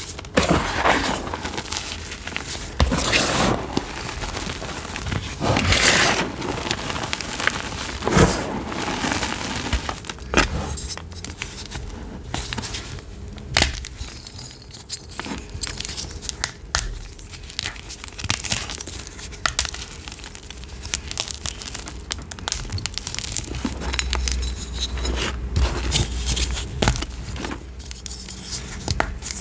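Chalk being crushed, a run of crunchy, crumbling cracks, louder and thicker in the first half and sparser later.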